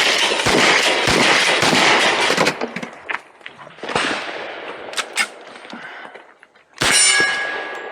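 Rapid semi-automatic gunfire from a Thompson 1927A1 carbine: a quick string of shots for about two and a half seconds, then scattered single shots. Near the end a steel target rings after it is hit.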